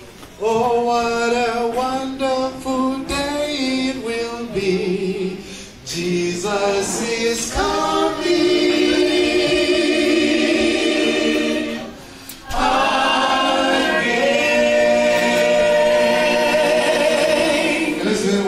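Church congregation singing a hymn together, led by singers on microphones, with short breaks between lines.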